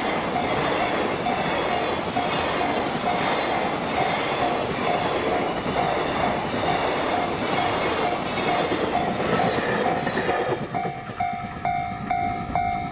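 Freight train wagons rolling past behind a JR Freight EF510 electric locomotive, a steady loud rumble with wheel clatter on the rails, which drops away about ten and a half seconds in as the end of the train goes by. Through it a bell-like ding repeats about every half second, standing out alone at the end.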